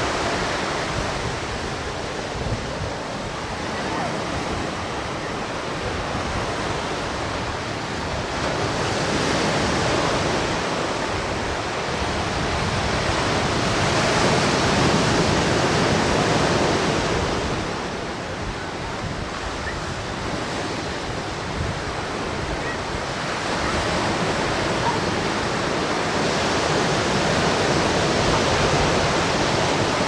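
Ocean surf breaking and washing up on a sandy beach, a steady rush that swells and eases every few seconds as waves come in.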